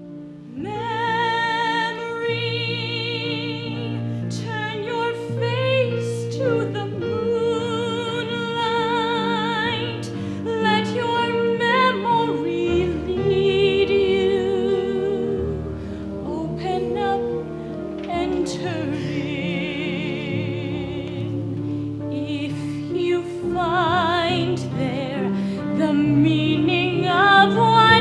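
A woman singing solo with strong vibrato in long held phrases, over a sustained instrumental accompaniment in a live stage-musical performance.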